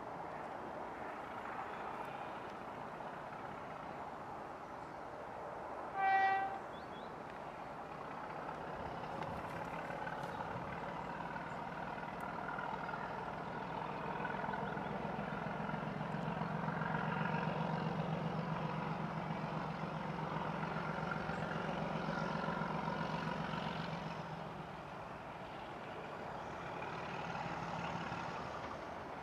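A short single horn toot from a distant BR Class 31 diesel locomotive about six seconds in. Then, from about fourteen seconds in, the low steady throb of its English Electric 12SVT engine grows louder as it approaches, easing briefly near twenty-five seconds before rising again.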